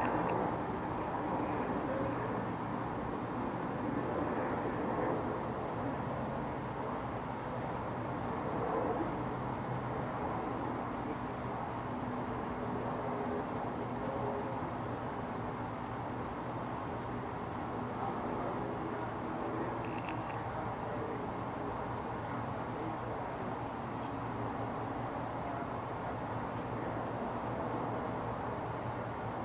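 Crickets trilling steadily in one unbroken high-pitched tone, over a constant low rumble of background noise.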